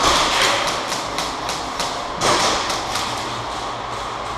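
A rapid run of short clicks and thuds, about five a second, over a steady rustling noise.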